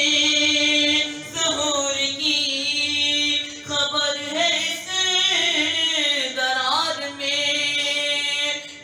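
A boy's solo voice sings an Urdu manqabat in praise of Ali into a microphone, unaccompanied. He holds long, ornamented notes that waver and glide between pitches, with brief breaths between phrases.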